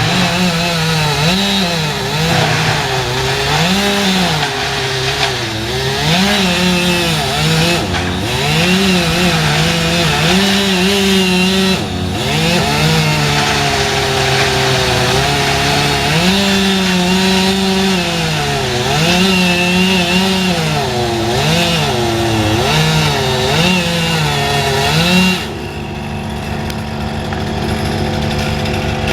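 Chainsaw cutting wood, its engine speed rising and falling over and over as it bites into the cut. Near the end it eases off and runs lower and quieter.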